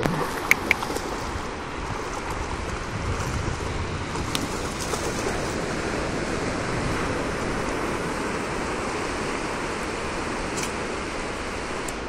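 Steady wash of ocean surf, with two sharp clicks about half a second in.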